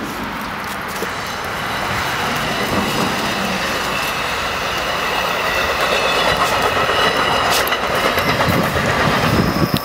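Steady noise of a passing vehicle, slowly growing louder, with a thin whine above it.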